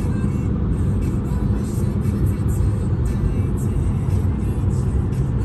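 Steady road rumble heard from inside a car moving at speed: tyre and engine noise with no change in pace.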